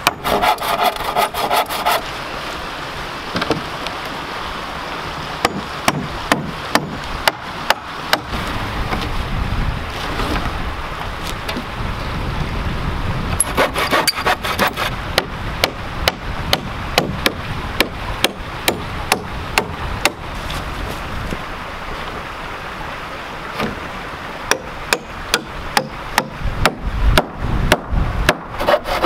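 A hand pruning saw cutting through a log in steady back-and-forth strokes, about two a second. At the start and again near the end a hatchet knocks quickly on barn boards.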